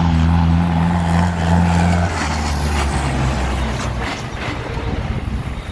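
Diesel tractor engine running steadily close by, its low hum dying away about four seconds in, over the rumble of other tractors driving across the field.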